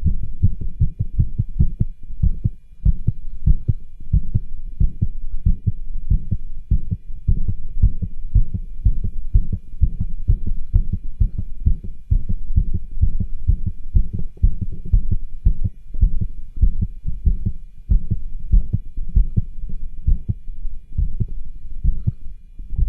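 Heartbeat heard through a cardiology stethoscope: an even run of low lub-dub thumps, a few a second, with the murmurs and rubs that this recording sets out to capture.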